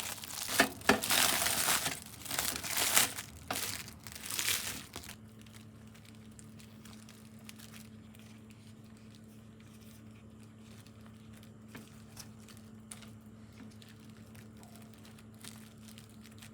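Plastic cling wrap crinkling and rustling as it is handled for about five seconds, then a faint steady hum with a few light ticks.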